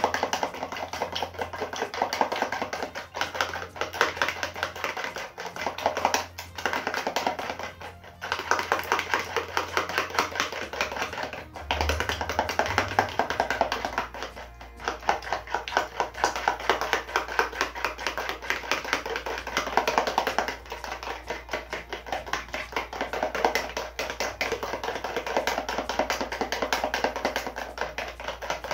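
Raw eggs being beaten with a metal spoon in a plastic tub: fast, steady clicking and tapping of the spoon against the tub, stopping briefly a few times.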